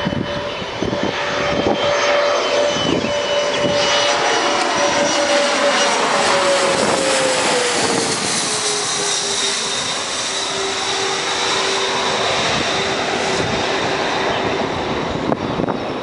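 Bombardier CRJ regional jet's rear-mounted turbofan engines whining as it flies low overhead on approach. The engine tones slide down in pitch from about six to nine seconds in as it passes by, then hold steady as it moves away.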